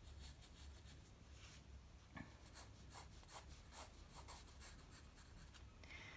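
Faint scratching of a graphite pencil drawing short strokes on sketchbook paper.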